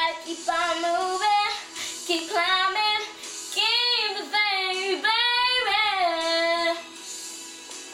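A young girl singing a pop ballad in phrases of sliding, wavering notes over a soft backing track that holds a steady note beneath her voice. Her singing stops about seven seconds in, leaving the backing track.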